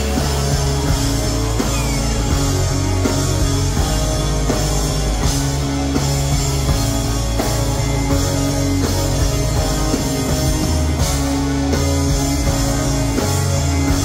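Rock band playing live, a loud instrumental passage with electric guitars, bass and drum kit and no singing.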